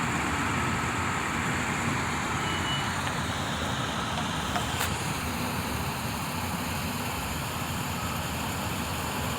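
Steady rushing noise with a low hum underneath, and one sharp click about five seconds in.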